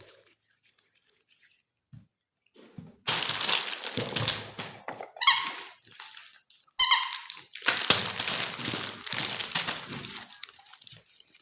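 Packaging crinkling and rustling as clay and clay tools are unboxed, starting after a few quiet seconds, with two short, loud squeaks about a second and a half apart in the middle.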